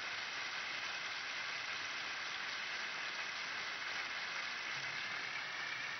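A large audience applauding steadily, the many claps blending into an even patter.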